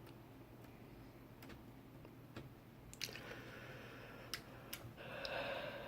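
Faint rustling and scattered light clicks of Cat5 cable's plastic-insulated twisted pairs being untwisted and handled by fingers, the rustle growing louder in the second half.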